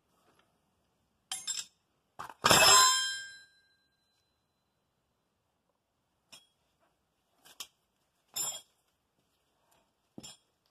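Metal tools and parts clinking in short, scattered knocks. One louder metallic clank about two and a half seconds in rings on for about a second.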